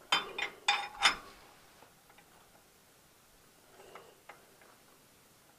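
Steel wrench clanking on the tractor's oil drain plug: four sharp, ringing metallic knocks within the first second or so, then a few faint ticks as it is worked against a plug that is stuck too tight.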